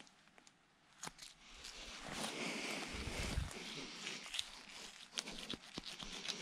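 Rustling and scraping as a sambar stag's hide is worked loose with a knife, with a low thump about halfway through and a run of sharp ticks from the blade near the end.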